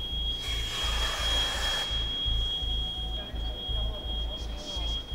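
A steady high-pitched electronic alarm tone sounds over a low throb that pulses about two to three times a second; about half a second in, a burst of hiss lasting about a second and a half rises over them.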